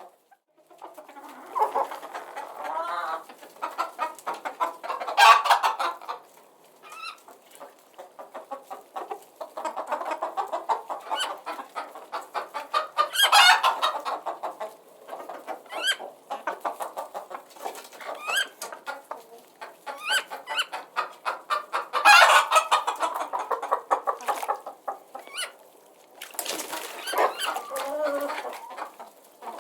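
Flock of chickens clucking continuously in quick overlapping clucks, with a louder call breaking out about three times.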